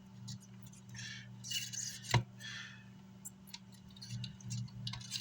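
Small parts and tools handled on a workbench: scraping and rustling, one sharp click about two seconds in, and a few lighter ticks near the end, over a steady low hum.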